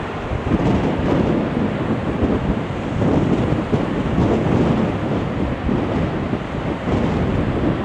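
Strong gale-force wind buffeting the microphone: a heavy, continuous low rumble that surges and eases with the gusts.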